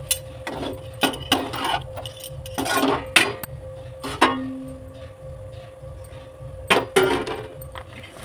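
Perforated metal spatula scraping and clinking against an aluminium pan while stirring potato filling, in irregular strokes, several of them sharp knocks.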